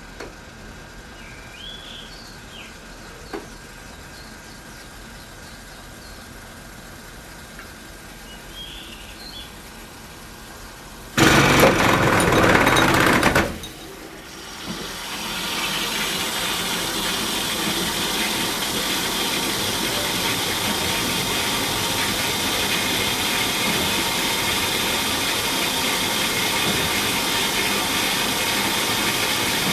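A newly installed water softener making its abnormal noise: a low steady hum, then about ten seconds in a loud rushing burst for about two seconds that cuts off suddenly, and a few seconds later a steady hissing rush that holds on.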